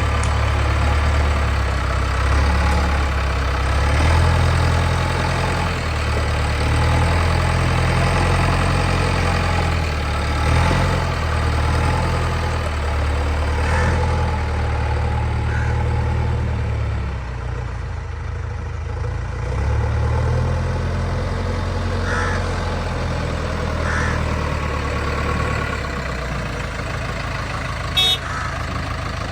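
Backhoe loader's diesel engine running at work, its low rumble swelling and easing as the load changes, with a sharp click near the end.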